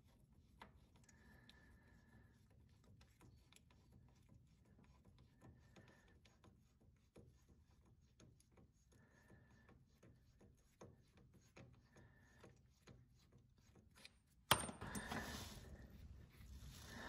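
Near silence with faint small ticks as a socket on the loosened harmonic balancer center bolt of a Ford 289 small block is turned by hand. Near the end comes one sharp click, then a rustle of handling.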